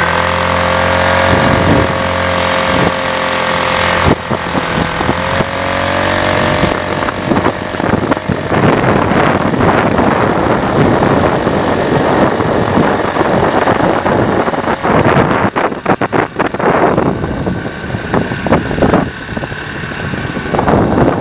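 Small gasoline engine of a motorized bicycle running while being ridden, a steady engine note for the first several seconds. From about seven seconds in, a rushing noise of wind on the microphone takes over.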